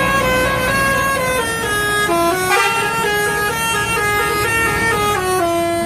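Indonesian bus telolet horn playing a quick tune of stepped notes, several tones sounding together and changing pitch every fraction of a second, over a low rumble.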